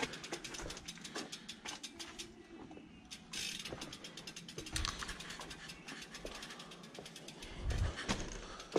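BMX rear hub ratchet clicking rapidly and evenly as the bike coasts, with a dull thump about five seconds in and another near the end as the bike rolls over bumps.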